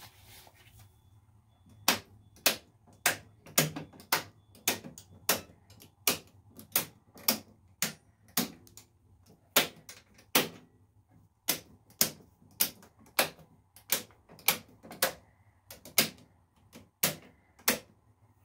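Circuit breakers in a breaker panel being switched on one after another by hand, about thirty sharp snaps at roughly two a second with a couple of short pauses. The power is being restored after a breaker replacement, and none of the breakers trips.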